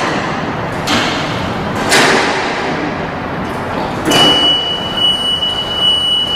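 Haulotte Compact 14 electric scissor lift lowering its platform. A few short clattering rushes ring out in the hall, then a steady high beep sounds from about four seconds in, the lift's warning alarm during descent.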